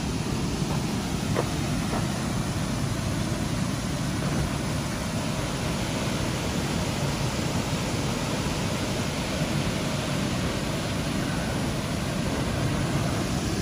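Water pouring over the crest of a long, low river dam and churning below it: a steady, even rush.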